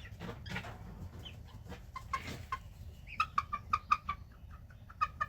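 Young chickens, not yet grown, making short chirping and clucking calls, a few scattered at first, then a quick, busy run of them from about three seconds in.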